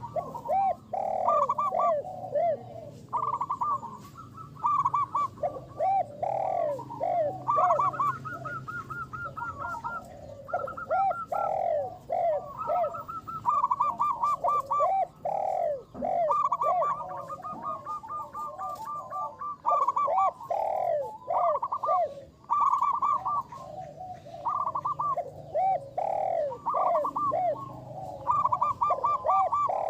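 Zebra doves (perkutut) cooing: continuous runs of quick, rolling coo notes at two pitches that often overlap, pointing to more than one bird calling.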